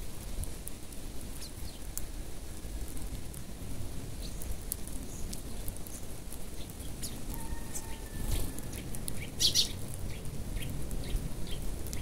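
A flock of Eurasian tree sparrows feeding on the ground, giving scattered short chirps, with one louder call about three quarters of the way through. A low rumble runs underneath.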